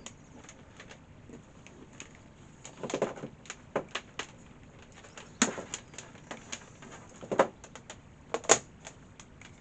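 Hard plastic laptop parts and power-adapter plugs being handled: irregular clicks, taps and knocks, a few of them sharp and loud, as the plugs are compared and tried.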